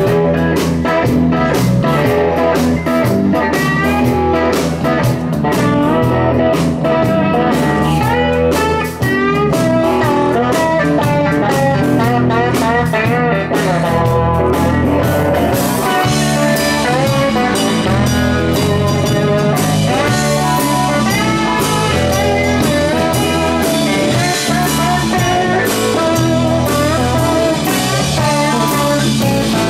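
Live blues-rock band playing: electric guitars over bass and drums. The sound gets brighter and fuller about halfway through.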